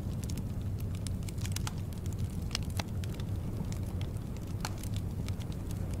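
Wood fire in a fireplace crackling, with irregular sharp pops and snaps, several a second, over a steady low rumble.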